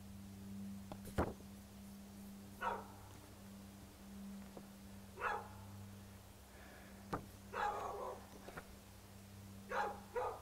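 A dog barking, single barks a couple of seconds apart with two quick ones near the end. A sharp click about a second in and another around seven seconds, over a steady low hum.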